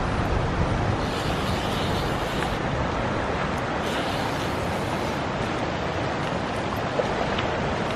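Steady rush of river water, with brief louder swells of hiss about a second in and about four seconds in.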